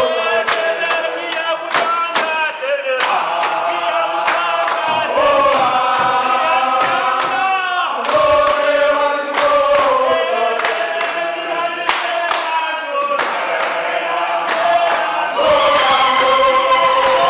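A group of men singing a chant together in unison, with hand claps keeping a steady beat.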